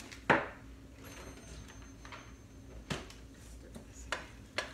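A few sharp kitchen knocks, the loudest about a third of a second in. Lighter clacks follow near the end, of a wooden spoon against a stainless steel saucepan.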